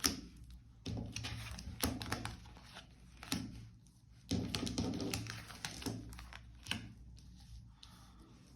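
Tarot cards being handled and laid on a table: a few sharp taps and slaps with short rustles of card stock in between.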